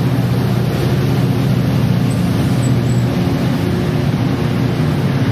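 Metrolink commuter train of bilevel cars rolling along the station platform. There is a steady low hum from its MP36PH3-C diesel-electric locomotive over an even rumble of wheels on rail.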